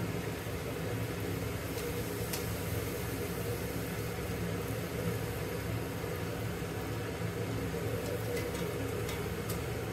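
Luchi deep-frying in hot oil in a kadai: a steady sizzle and bubbling, with a low steady hum underneath.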